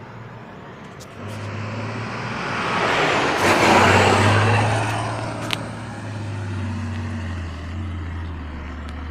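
Diesel engine of a heavy off-road trial truck running hard as the truck passes close by on a dirt track, with its wheels churning and flinging dirt. The noise builds to its loudest about four seconds in, then settles back to a steady engine note.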